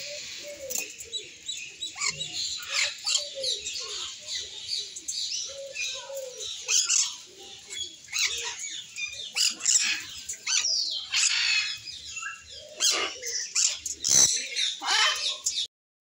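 Several caged birds calling together: a dense run of short, high chirps and calls, with lower calls that rise and fall in pitch underneath. The sound breaks off for a moment just before the end.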